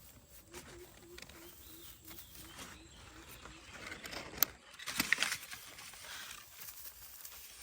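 A rapid string of short low notes from an animal, about five a second, for the first few seconds. Then a cluster of rustling and sharp clicks, as of leaves and stems being handled, about halfway through.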